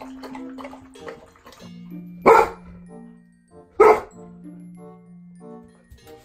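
Dogs lapping goat's milk from glasses in quick regular licks, then two loud dog barks about a second and a half apart, over background music.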